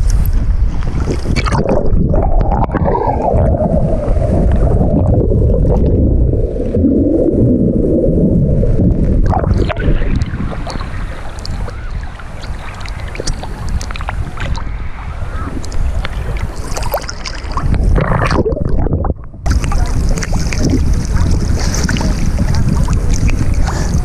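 Sea water sloshing and splashing around a waterproof action camera bobbing at the surface, with a constant low rumble of wind and water. The sound goes muffled for several seconds, from about two seconds in, as the camera dips under the water.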